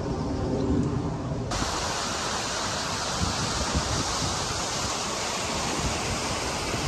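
Outdoor background noise that jumps abruptly about a second and a half in to a steady, even rushing hiss.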